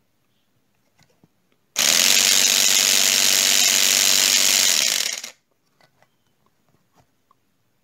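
Small electric air compressor with its casing open, switched on off a battery: the electric motor drives the piston through its gear with a loud, steady, high-speed buzz for about three and a half seconds, starting about two seconds in and then cutting off. A few faint clicks follow.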